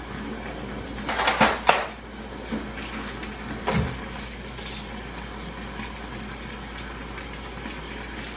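Steady rush of running water with dishes clattering, loudest about a second in and again near the middle.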